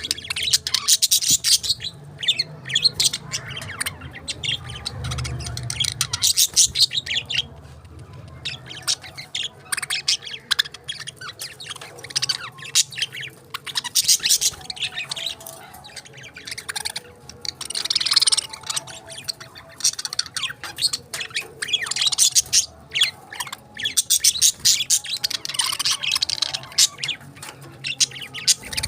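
Budgerigars chirping and warbling, a busy stream of quick high chirps with a few short lulls.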